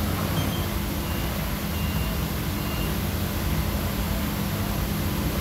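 Steady noise with a low hum, which is the loudest thing, and a few faint short high beeps about a second apart, typical of a forklift's reversing alarm.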